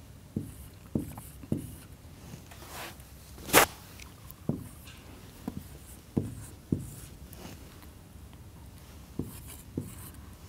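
Marker pen writing figures on a whiteboard: a string of short taps as the tip meets the board, with faint squeaky strokes between them and one louder click about three and a half seconds in.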